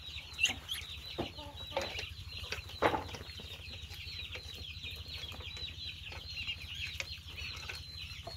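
A flock of ducklings peeping without pause in a dense, high chorus while they feed together from a pan, with a few sharp knocks, the loudest about three seconds in.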